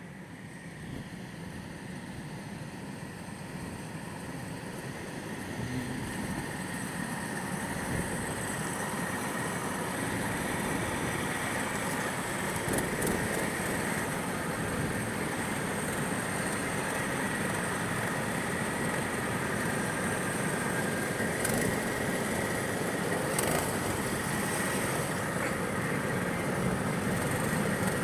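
Go-kart engine running, growing louder over the first ten seconds or so, then holding steady.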